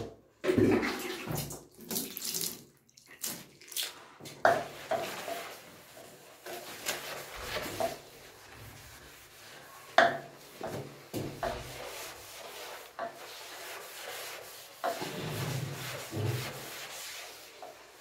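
A sponge scrubbing the wet, soapy surface of a bathtub, with water splashing and a few sharp knocks along the way.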